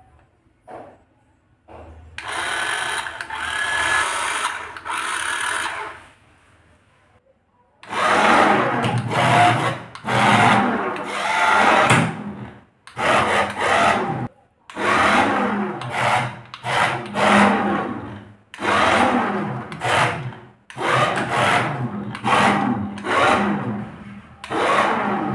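Toy remote-control car's small electric drive motor and gears whirring as it is driven across a wooden tabletop: one run of about four seconds, then a string of short bursts of a second or two with brief pauses, as the remote's buttons are pressed and released.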